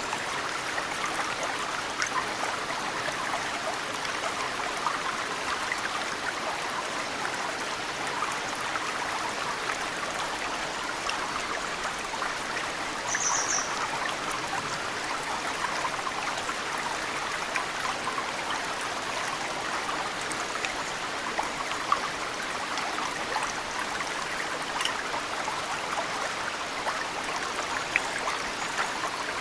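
Mountain stream flowing steadily, with snowmelt drops falling into the water as scattered small plinks. A single short, high bird chirp comes about halfway through.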